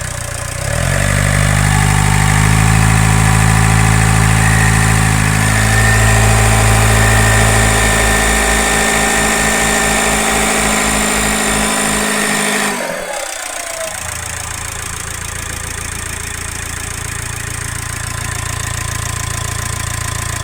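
Ford Focus 1.8 turbodiesel engine held at slightly raised revs with a steady whistle over it, then dropping back to idle about 13 s in with a falling whine. The whistle is a foreign noise that persists with a new timing-belt idler pulley fitted; the mechanic places it at the rear of the engine by the turbocharger and suspects something scraping the housing.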